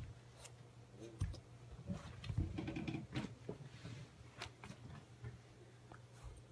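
Soft scuffs and a few light thumps of a puppy playing with a tennis ball on carpet, with a short low vocal sound about two and a half seconds in.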